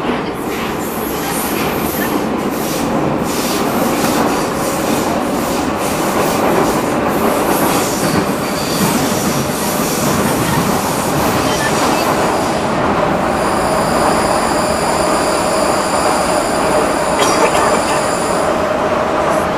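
Prague metro train running at speed through a tunnel, heard from inside the car: a loud, steady rumble of wheels on rails, with a series of clacks over the first eight seconds. A high, steady whine sets in about two-thirds of the way through and stops just before the end.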